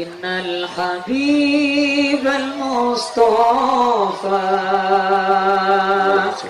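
A man singing solo into a microphone: long held notes with a wavering vibrato and melismatic turns, in several phrases with short breaths between them.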